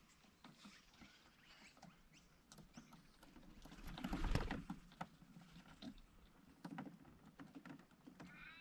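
Parrots tapping and scratching on a caravan's roof and solar panel: a faint, irregular patter of small clicks like rain on the roof, with a louder rustle about four seconds in and faint bird calls.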